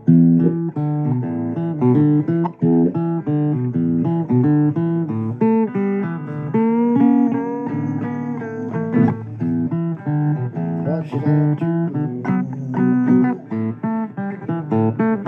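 Instrumental break of a blues song: guitar picking a fast run of single notes and chords, no vocals.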